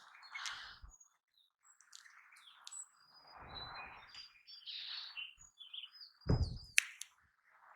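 Wild birds chirping in short, broken calls. Low thumps come about three and a half and six seconds in, and sharp clicks follow near the end.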